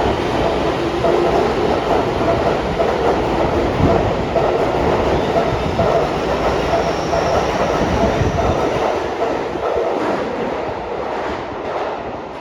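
Toei 10-300 series subway car heard from on board, running through the tunnel: steady wheel-and-rail rumble with clicking over rail joints. A faint high whine rises in pitch about halfway through, and the running noise grows quieter over the last couple of seconds.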